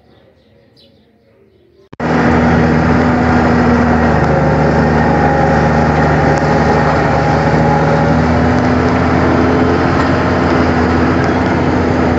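Loud, steady rush of road and wind noise from a moving vehicle, with a low engine drone that shifts a little in pitch. It starts suddenly about two seconds in, after a faint quiet opening.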